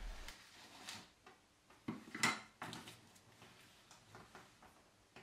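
Soldering tools and small parts handled on a wooden desk: a few soft knocks and clicks as solder wire, tweezers and a soldering iron are picked up and set against the board, the loudest a little after two seconds in.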